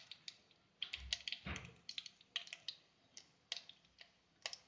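Mustard, cumin and fenugreek seeds crackling in hot oil in a kadai as the tempering begins: scattered, irregular sharp pops, with a couple of duller knocks about one to one and a half seconds in.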